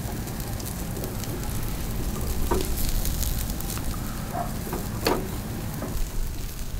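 Small wood fire catching in a portable fire pit, crackling with scattered pops over a steady low rush. There are a couple of louder knocks about two and a half and five seconds in.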